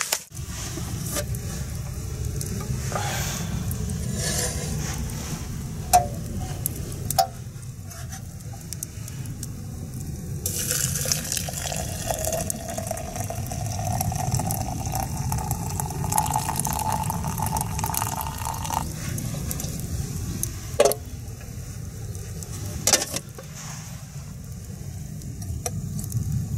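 Hot water poured from a metal pot into a glass French press of herbal tea leaves: a pouring sound lasting about eight seconds from near the middle, its pitch rising as the press fills. A few sharp clinks come before and after the pour, over a steady low rumble.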